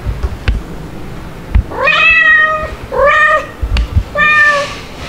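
A cat meowing three times in quick succession, each call rising and then holding briefly, with a few dull bumps between the calls.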